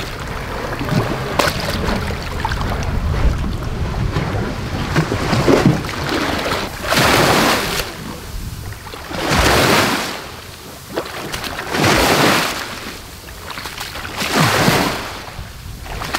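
Wind rumbling on the microphone with water splashing, then from about six seconds in, small waves washing up and draining back on a sandy shore, one swell every two to three seconds.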